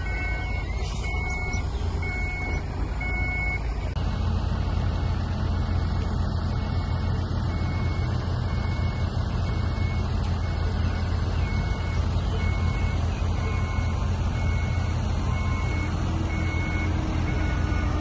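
Loaded 25-tonne dump truck reversing, its backup alarm sounding a steady run of short, high repeating beeps over the low, steady rumble of its diesel engine. The engine rumble grows louder about four seconds in.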